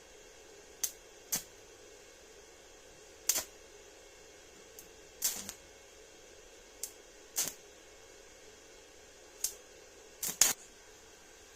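Irregular sharp clicks and taps of tools and materials being handled, about nine in all with a pair close together about ten seconds in, over a faint steady hum.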